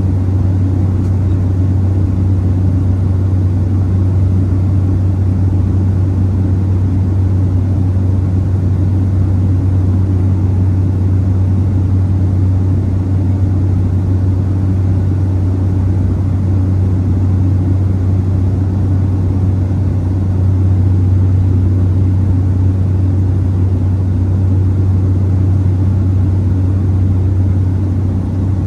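Steady drone of the Cessna 208B Grand Caravan's single Pratt & Whitney PT6A turboprop engine and propeller in flight, heard from inside the cabin, with a strong low hum under a wash of airflow noise.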